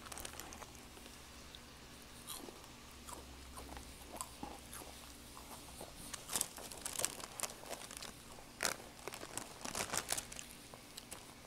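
Rice Krispie treat being picked apart and eaten: a run of sharp crackles and crunches, sparse at first and thickest in the second half.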